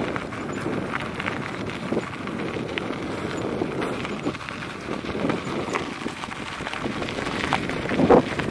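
Salsa Fargo bicycle rolling over a gravel road, tyre crunch and rattle mixed with wind on the action camera's microphone, with a few scattered small clicks.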